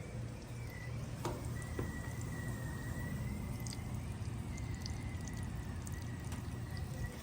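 Bard 3-ton wall-hung heat pump running in cooling mode: a steady low hum, with a faint high tone above it and a few small ticks.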